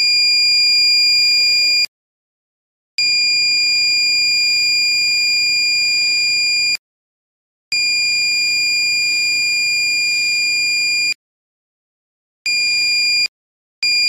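Small electronic buzzer of a DIY laser-tripwire alarm sounding a loud, steady, high-pitched tone, set off by the laser beam to its light sensor being blocked. It sounds in five stretches of one to four seconds, each starting and cutting off sharply.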